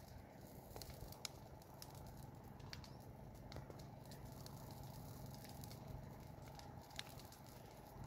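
Dry roadside scrub and grass burning: faint, scattered crackles and sharp pops over a low steady rumble. The sharpest pops come about a second in and near the end.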